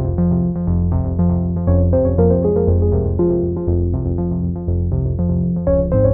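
Background music: a synthesizer keyboard tune of quick short notes over a steady bass line.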